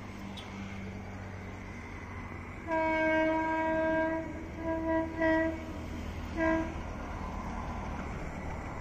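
Indian Railways train horn sounding from a train out of view: one long blast about three seconds in, then a few short toots. A steady low rumble runs underneath.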